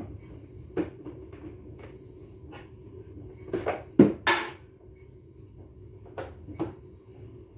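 Irregular clicks and knocks of hard objects being handled, about eight in all, the loudest two close together about four seconds in, over a steady low hum.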